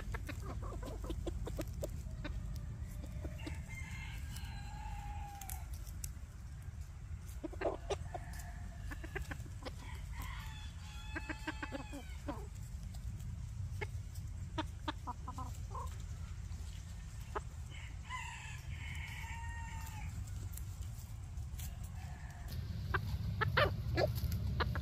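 Phoenix bantam roosters crowing about three times, with short clucking calls in between. A steady low rumble runs underneath and grows louder near the end.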